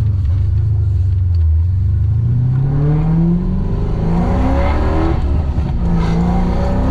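Car engine fitted with a custom-grind camshaft accelerating hard. It runs low and steady for about two seconds, then climbs steadily in pitch, drops sharply at an upshift about five and a half seconds in, and starts climbing again.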